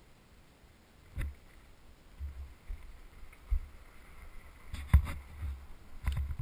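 Irregular muffled low thumps and a few sharp clunks picked up by a helmet camera on a dirt bike, with the loudest knock about five seconds in and quiet between them.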